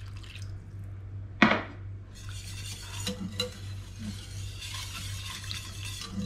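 Water poured from a small bowl into black pepper sauce in a stainless steel pan, with a short loud sound about a second and a half in, then a wire whisk stirring the sauce with scraping and light ticks against the pan. A steady low hum runs underneath.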